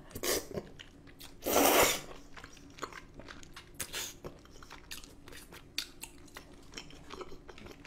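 Close-miked eating: one loud slurp of creamy carbonara tteokbokki noodles about a second and a half in, then mouth-open chewing with many small wet clicks.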